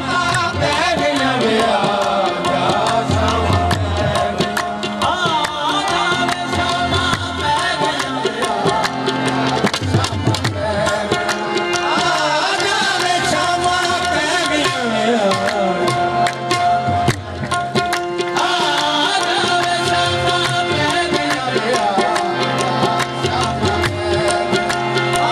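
Live qawwali music: tabla drumming under harmonium, with wavering sung vocal lines.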